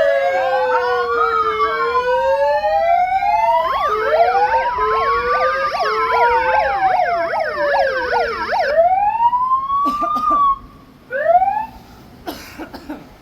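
Several sirens sounding at once: slow rising-and-falling wails overlap, with a fast yelp joining about a third of the way in. They cut off suddenly about two-thirds of the way through, and a few short rising whoops and clicks follow.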